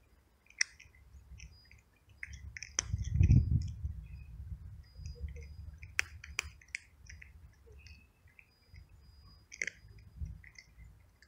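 A cat crunching dry kibble: irregular crisp crunches while it chews. A brief low rumble about three seconds in is the loudest sound, and two sharp clicks follow about six seconds in.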